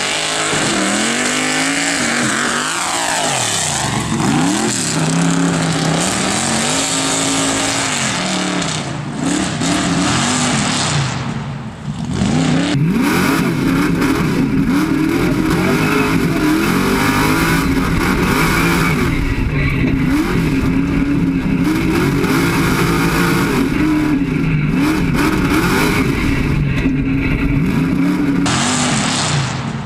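Tuff truck's engine revving hard, its pitch swinging up and down rapidly as the throttle is worked over a rough dirt course. About twelve seconds in the sound drops briefly and carries on as heard from inside the caged cab, closer and busier.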